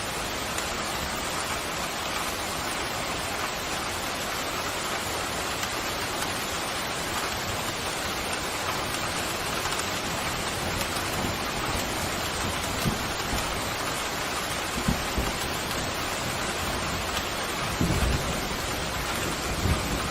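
Steady pouring rain, with a few brief low rumbles of thunder and a louder roll of thunder starting near the end.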